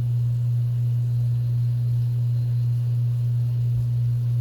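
Steady low hum, one unchanging deep tone that is the loudest thing heard.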